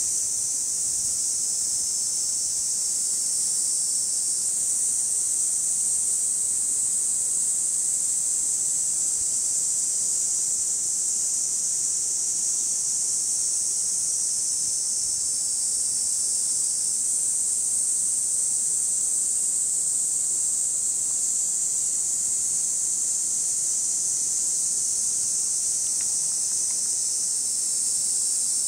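Cicadas singing in a steady, unbroken chorus: a loud, even, high-pitched buzz that never pauses.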